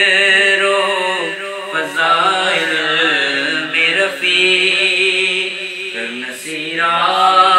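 Naat sung in Urdu: a voice holding long, wavering notes over a steady low drone.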